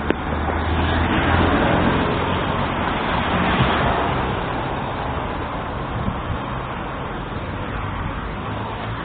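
Road traffic noise: a vehicle passing, the rush swelling about a second in and slowly fading, over a steady low rumble.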